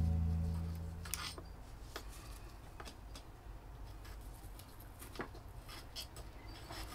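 The last plucked guitar chord of background music dies away within the first second and a half. After that, faint scattered clicks and scrapes of metal tweezers pressing small succulent cuttings into potting soil.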